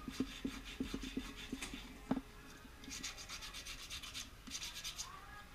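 Knife blade scraping and shaving a jackfruit-wood lure body: a run of light knocks and scrapes, about three a second, for the first two seconds, then two longer rasping strokes from about three seconds in.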